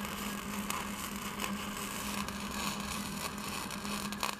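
Electric arc welding a steel bracket onto a steel post: the arc gives a steady crackling hiss, with a steady low hum underneath.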